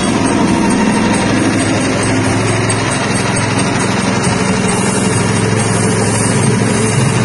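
Soybean dehulling machine running steadily, its motor giving a constant hum.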